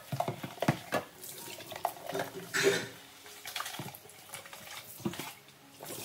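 A plastic jug being washed in a stainless steel sink: irregular knocks and clatter of plastic against steel, with sloshing water and a louder splash about two and a half seconds in.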